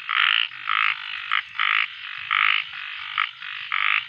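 A frog calling loudly and steadily, short rasping croaks repeated about every two-thirds of a second.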